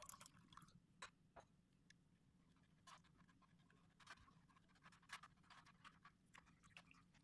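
Near silence, with faint scattered scratches and light taps of a metal spoon stirring citrus pulp against a plastic mesh sieve to strain out the juice.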